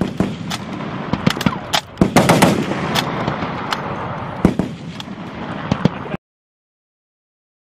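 M2 .50-calibre heavy machine-gun fire: a string of irregularly spaced loud shots, cutting off suddenly to silence about six seconds in.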